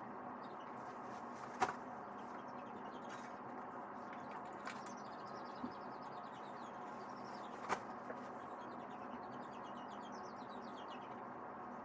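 Puppy pads being handled and spread on a tile floor: soft rustling with a few light taps, the clearest about a second and a half in and again near eight seconds.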